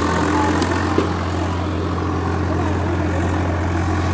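Swaraj 855 tractor's three-cylinder diesel engine running steadily at about 1800 rpm under load, pulling an 18-disc harrow through the soil in first gear.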